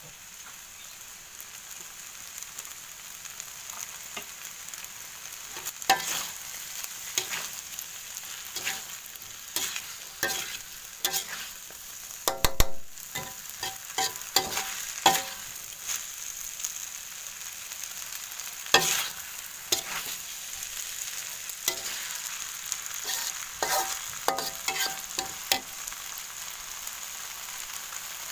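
Fried noodles sizzling in a hot wok, with a slotted metal spatula scraping and knocking against the pan again and again as they are tossed.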